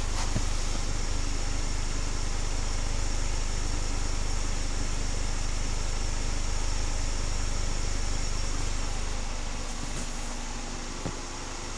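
2010 Mercury Milan's 2.5-litre four-cylinder engine idling steadily, heard at the dual exhaust tips; the sound grows a little fainter near the end.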